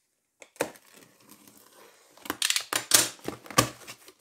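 Cardboard shipping box being cut open along its taped seam with a utility knife, a sharp click about half a second in, then its flaps pulled and folded open with a run of loud cardboard scrapes and crackles.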